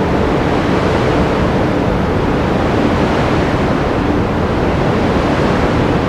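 Sea waves washing onto the shore as a steady, unbroken surf noise.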